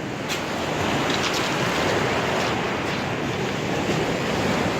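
Ocean surf breaking and washing in, a steady rushing that swells a little louder about a second in.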